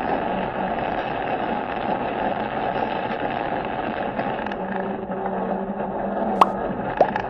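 Steady road and wind noise of a vehicle travelling along a highway, with an engine hum joining about four and a half seconds in and two short sharp clicks near the end.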